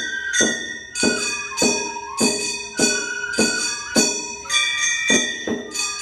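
Gion bayashi festival music: small bronze kane gongs struck in a steady beat, about ten ringing strokes in the six seconds, with a transverse bamboo flute playing a wavering, sliding melody over them.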